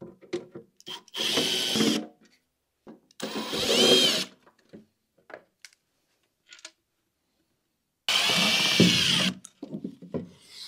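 Cordless drill backing out Phillips screws from a plastic side grate, in three short runs of about a second each, its motor pitch rising and falling with the trigger. Light clicks and knocks of handling the screws and grate come between the runs.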